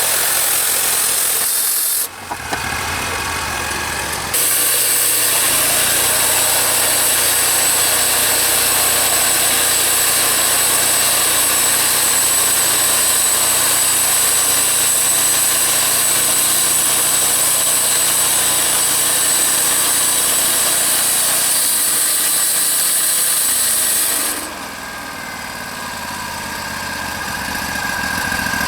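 Wood-Mizer band sawmill running, its engine humming under the band blade cutting through a log. A loud, steady high-pitched cutting noise comes in briefly at the start and again from about four seconds in, then stops near the end, leaving the engine running alone.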